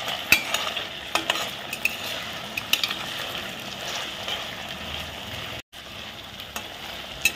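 Diced potato with cumin seeds and green chillies sizzling in hot ghee in a stainless steel kadhai. A steel spatula stirs and sautés the mix, scraping and clicking against the pan now and then. The sound cuts out for an instant about three quarters of the way through.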